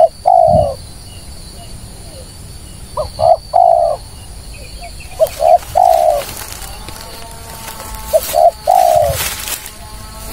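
Spotted dove (tekukur) cooing: a phrase of two or three short notes and a longer falling coo, repeated four times about every two and a half to three seconds.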